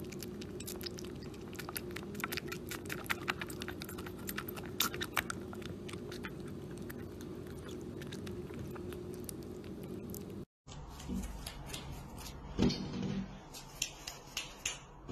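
Young kitten suckling from a nursing bottle: many quick wet clicks and smacks over a steady low hum. About ten seconds in the sound cuts to a different recording with a few louder knocks and clicks.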